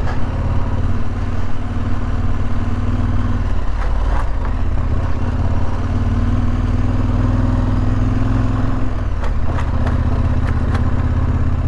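KTM 1190 Adventure R's V-twin engine running steadily under way, easing off briefly about three and a half seconds in and again about nine seconds in.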